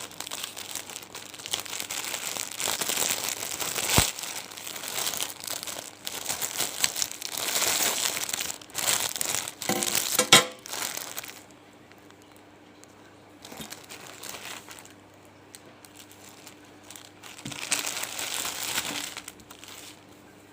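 Parcel packaging crinkling and tearing as it is opened by hand, busy for about the first eleven seconds with a sharp click about four seconds in, then two shorter, quieter spells of crinkling.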